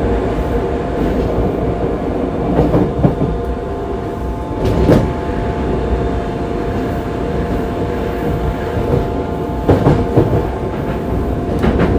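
Yokohama Municipal Subway Blue Line 3000A-series train running: a steady rumble with a few level hum tones, broken by wheel knocks over rail joints. There is a pair about three seconds in, one loud knock about five seconds in, and another pair near ten seconds.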